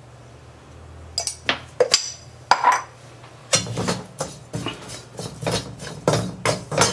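Perforated steel ladle scraping and clinking against a metal kadai while stirring dry-roasted grated coconut and spices. A few separate clicks come first, then from about halfway on a steady run of scraping strokes, about three a second.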